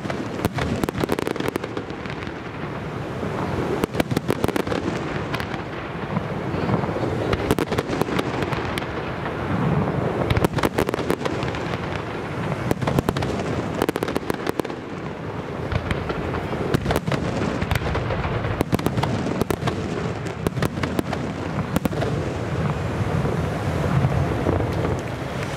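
Aerial fireworks display: many shells bursting in quick succession, a dense run of sharp bangs over continuous crackling.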